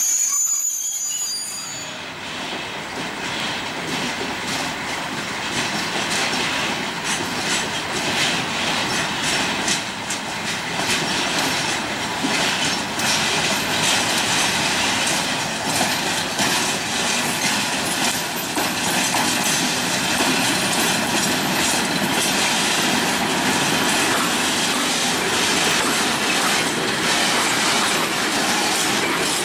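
Freight train wagons rolling past, their wheels clicking over rail joints. A high wheel squeal at the start cuts off about a second in.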